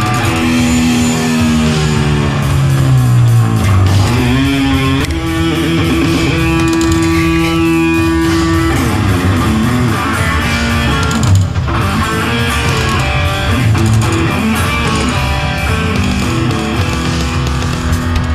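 Heavy rock music led by electric guitar, with a long held note in the middle.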